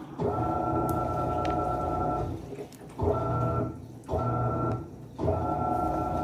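Panasonic 14 kg washing machine in its wash stage: the motor hums and whines as it drives the wash agitation in on-off runs. There is a long run, then two short ones a little under a second each, then another long run, with brief pauses between.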